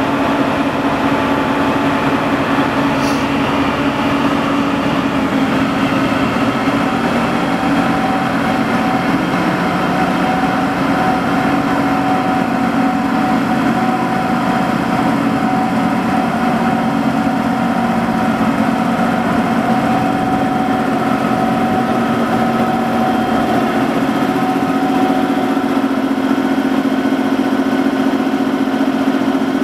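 Diesel shunting locomotive built by LEW Hennigsdorf, its engine running steadily as it rolls slowly out of the engine shed. A brief click about three seconds in.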